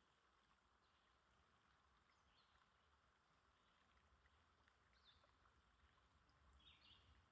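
Near silence: faint background hiss with a low hum and a few faint short chirps.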